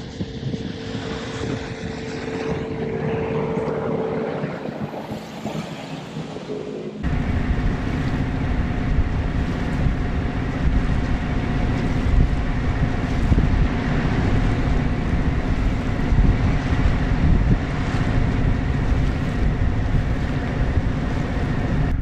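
A sailboat's engine running steadily under way, with wind on the microphone. About seven seconds in the sound cuts to a louder, deeper engine rumble.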